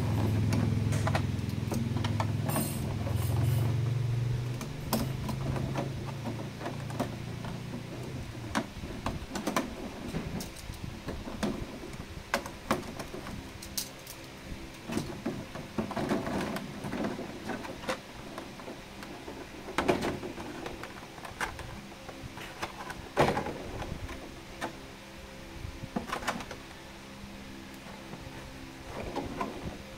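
Clear plastic blister packaging being handled: scattered crinkles, clicks and rustles of stiff plastic, the sharpest clicks about two-thirds of the way through. A low rumble runs under the first few seconds and fades away.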